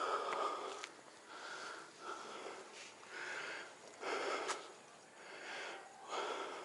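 Heavy, rhythmic breathing close to the microphone, about one breath a second, the hard breathing of someone who has just finished a steep uphill trek.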